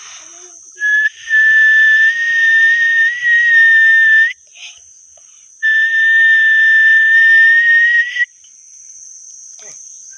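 A person whistling to call snakehead fish out of the water: two long, steady whistled notes, each held about three seconds and lifting slightly in pitch at the end, with a short chirp just before the first.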